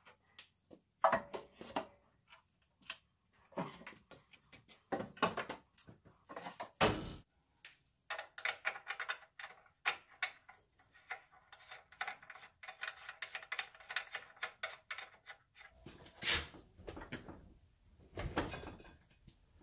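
Irregular knocks, clicks and clatter as an engine hanging from a hoist is shifted by hand into a car's engine bay, the metal parts bumping against each other. The knocks come thickest in the middle, with a few louder thuds.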